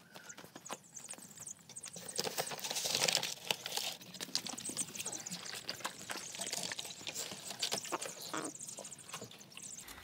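High-pitched peeping from a brood of broiler chicks, over many quick clicks, taps and rustles of straw and handling in the brooder.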